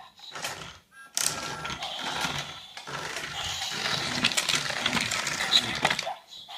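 Battery-powered plastic Thomas the Tank Engine toy running, its motor and wheels giving a continuous rattling whir as it rolls across a hard floor. The noise starts about a second in and stops shortly before the end.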